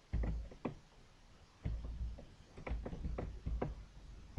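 A series of about seven dull clicks and knocks, irregularly spaced, each a short sharp tap with a thump underneath.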